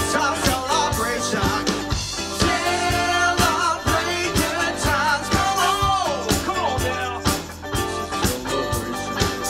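Live rock band playing, with drums, electric guitar, bass and keyboard under a singer's voice.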